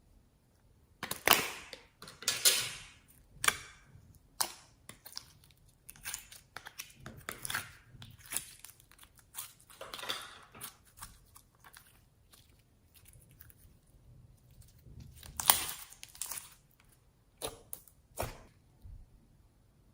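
Slime being squeezed, stretched and pressed by hand, giving irregular crackling, squishy bursts with short quiet gaps between them.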